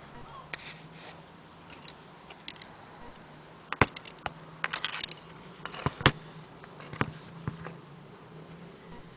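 Irregular clicks and light knocks, clustered in the middle, as of an antique French mantel clock being handled, over a faint steady hum.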